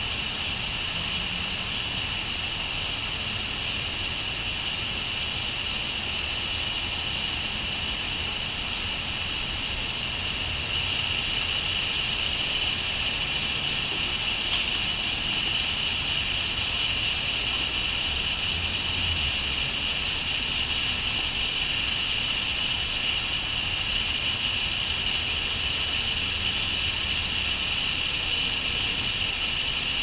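Steady outdoor background of low rumble and a constant high hiss, with a few brief, very high chirps from a small bird, once about halfway through and a couple more near the end.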